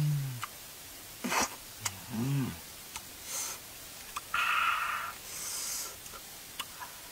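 A man eating soft, ripe avocado: sharp wet clicks of chewing and lip-smacking, and two short hummed "mm" sounds, the second rising and falling about two seconds in. A brief scratchy noise about four and a half seconds in, as the avocado skin is torn.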